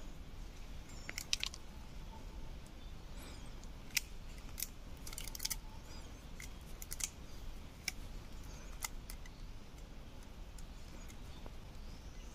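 Hands tying thin cord around a wooden stick: small irregular clicks and light scrapes of cord and wood being handled, over a steady low rumble.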